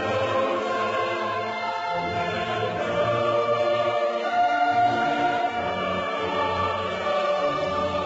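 Classical choral music with orchestra: voices singing long, held notes over a steady bass.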